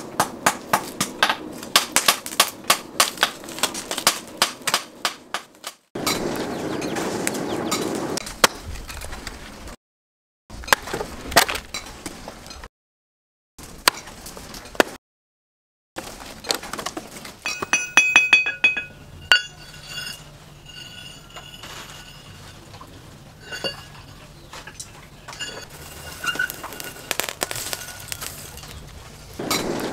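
A string of short cut-together yard and forge sounds: a quick run of sharp knocks, a few axe blows into dry wood, short clucking calls from chickens, and lumps of charcoal clinking as a hand stirs them in the forge.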